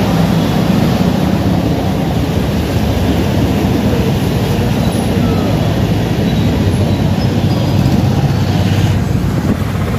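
Motorcycle engine running steadily at low speed, heard from the rider's seat, with the tyres rolling through water and mud on a flooded road.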